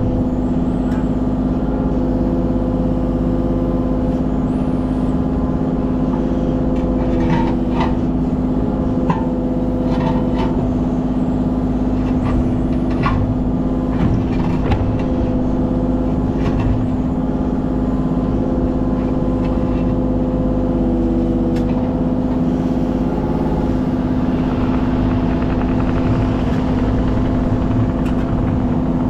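Kubota KX033 mini excavator's diesel engine running at a steady speed while it digs, with scattered short metallic clanks from about 7 to 15 seconds in.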